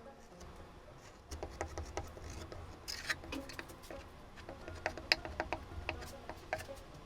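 Irregular scraping and clicking from a hand tool worked against a paddle board's surface during a repair.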